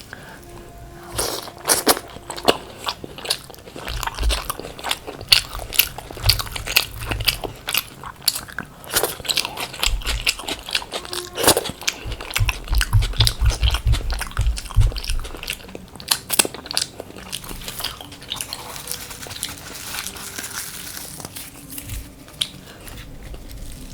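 Close-miked eating: biting and chewing crisp fried potato (aloo bhaja) with puri, with many sharp crunches that ease off in the last few seconds.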